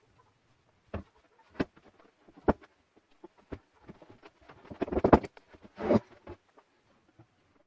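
Irregular knocks and clicks from hard objects being handled, with a quick run of clatter about five seconds in.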